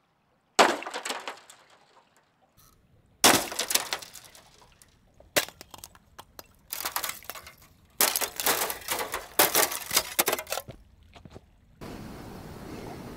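Several separate spells of sharp clinking and clattering of hard objects, each starting abruptly, followed near the end by a steady hiss.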